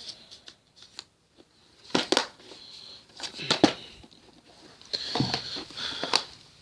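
Plastic DVD cases and discs being handled: scattered clicks, taps and rustling, with a few sharper knocks about two seconds in, around three and a half seconds and near the end.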